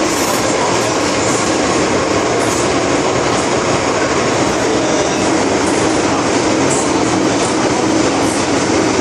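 Steady running noise of an MTR M-Train metro car heard from inside the cabin, with wheels on rails and the rumble of the car moving through a tunnel.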